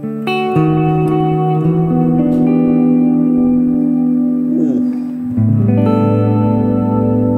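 Clean electric guitar chords played through a Valeton GP200 multi-effects pedal with heavy reverb and a 500 ms analog delay, each chord left to ring into a wide, ambient wash. A brief sliding pitch change comes just before another chord is struck a little past halfway.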